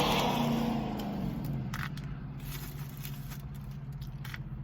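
A car's engine idles with a steady low hum inside the cabin. For about the first second there is a rustling, pouring sound as crushed almonds are shaken into a sundae cup, followed by a few light clicks.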